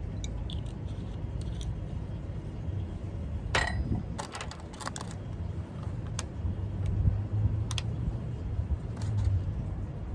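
Scattered small clicks and taps, like objects being handled on a desk, a cluster about a third of the way in and two single ones later, over a low steady hum.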